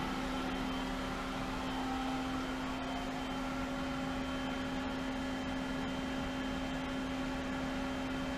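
Hayward Super Pump VS variable-speed pool pump running steadily at 2250 rpm: a constant motor hum with a clear, unchanging tone over it.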